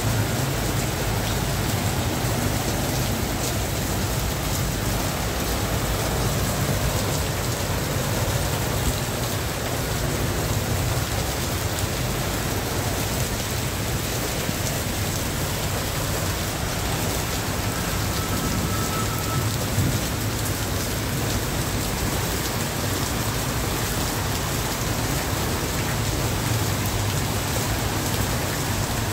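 Heavy downpour on a flooded street: a steady, dense hiss of rain with a constant low rumble beneath it.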